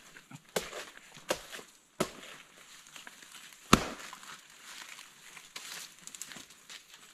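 Chopping blows into a banana plant's stem: four or so irregular sharp strikes, the loudest nearly four seconds in, with leaves rustling between them.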